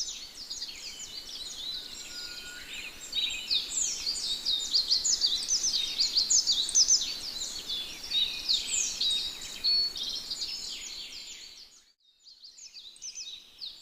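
Birds chirping and singing, many short high calls overlapping in a dense chorus; it fades out near the end and comes back faintly.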